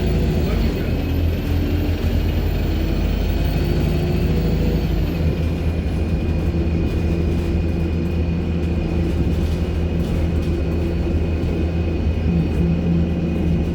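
Alexander Dennis Enviro200 MMC bus running under way: its diesel engine hums with a steady drone, under a very high turbo whine that falls in pitch and fades about five seconds in as the engine note shifts.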